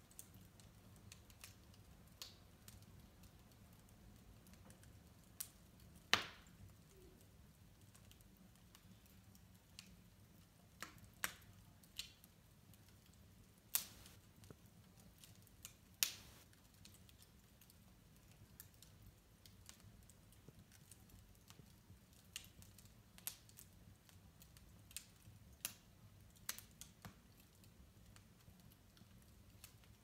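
Wood fire crackling in a fireplace: quiet, irregular sharp pops and snaps from the burning logs over a faint low rumble, the loudest pops about six, fourteen and sixteen seconds in.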